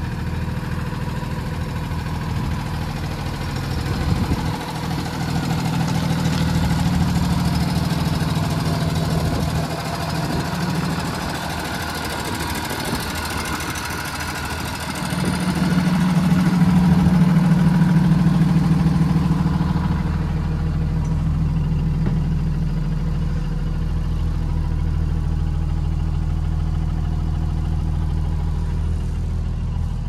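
A 2012 Blue Bird Vision school bus engine idling steadily. It is loudest about halfway through, near the front of the bus, and from about twenty seconds in it is heard muffled from inside the bus body.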